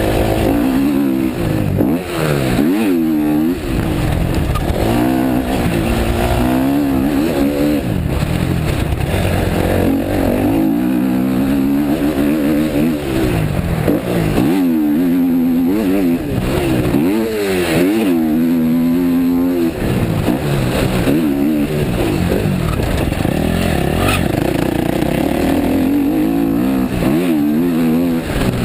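Motocross bike engine running hard around a dirt track, its pitch climbing and falling again and again as the throttle is opened and closed through the corners and gear changes.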